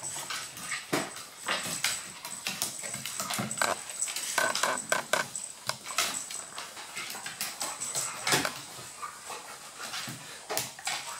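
A Maltese, a Golden Retriever and a Husky-German Shepherd mix play-fighting on a hardwood floor: paws scrabbling and claws clicking and knocking on the boards in quick irregular bursts, with a few short high-pitched dog whimpers about four to five seconds in.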